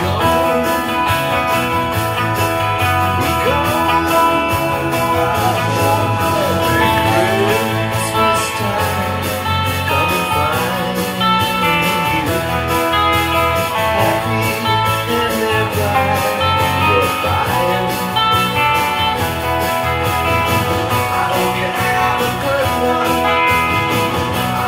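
Rickenbacker electric guitar strummed in a jangly rock part, playing along with a full-band rock track that has drums and bass.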